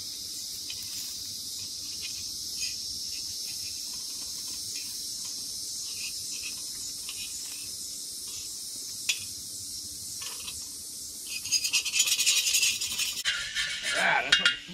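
Metal tongs clicking and tapping as fish fillets are lifted off a hot propane-fired cooking disc, with rougher scraping of the tongs across the pan's surface in the last few seconds. A steady high insect chorus runs underneath.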